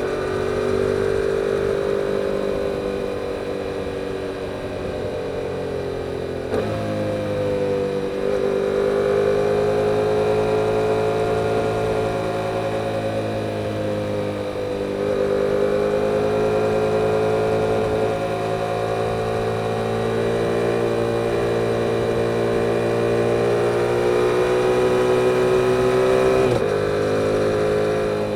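2022 Yamaha R7's 689 cc parallel-twin engine running through its stock exhaust on the road. Its note rises and falls with the throttle, with sudden steps in pitch about six seconds in and again near the end.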